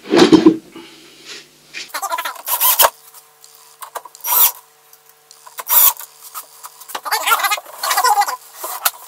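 Irregular short bursts of scraping, clatter and knocking from working on an MDF wall cabinet with a cordless drill-driver and handling its panels, loudest as a knock right at the start.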